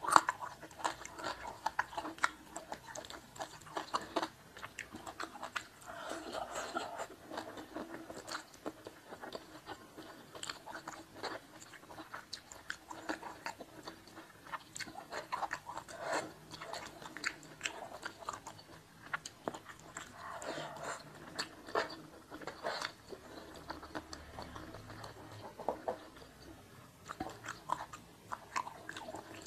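Close-up chewing of a mouthful of rice and sweet and sour fish eaten by hand, with many irregular wet mouth clicks and now and then a crunch.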